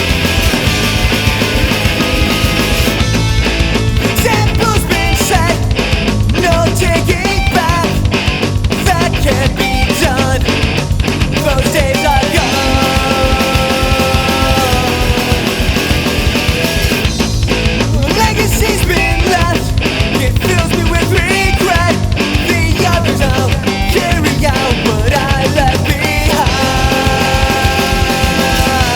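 Background rock music with distorted guitars, drums and a singing voice, loud and continuous.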